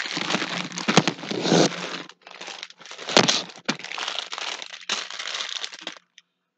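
Plastic packaging crinkling and crackling as it is handled, in spells, with sharp cracks about a second in and about three seconds in; it stops about six seconds in.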